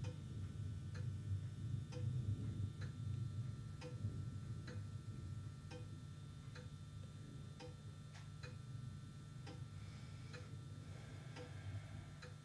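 Regular ticking, about one tick a second, over a steady low hum.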